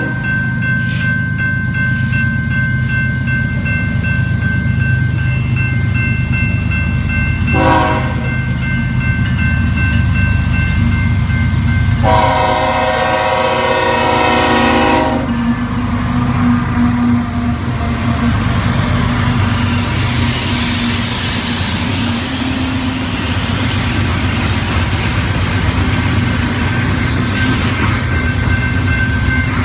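BNSF diesel locomotive air horn blowing for a grade crossing: one blast ends about a second in, a short blast comes near 8 seconds and a long blast runs from about 12 to 15 seconds. Under it are the steady ringing of the crossing bell and the locomotive's diesel rumble. After that the coal cars pass with continuous wheel and rail noise.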